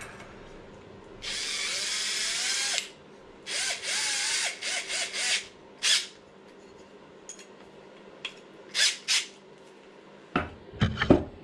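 Small electric power driver running screws into a metal bracket in spurts: one longer run a second or so in, then several short bursts with the motor pitch wavering under load, and a few sharp clicks near the end.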